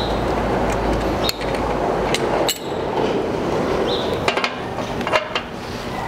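Metal clinks and sharp knocks of hand tools working the connecting-rod bearing cap bolts on an upside-down engine block. They sound over a steady noise that drops away about two and a half seconds in.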